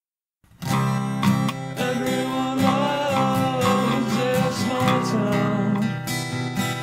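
A punk rock demo song starts suddenly about half a second in, led by strummed guitar.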